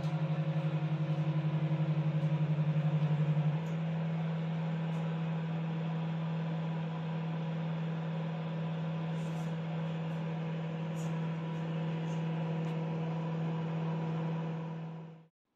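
Microwave oven running: a steady low hum over a whirring fan. The hum pulses for the first few seconds, then settles, and the sound dies away quickly near the end as the oven stops.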